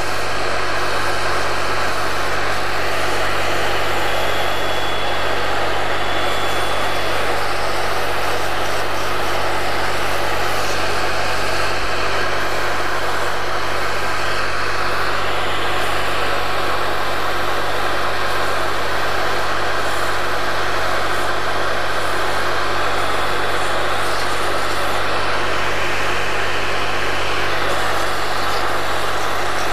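Cyclone dust collector running: a loud, steady rush of air with a low hum beneath it.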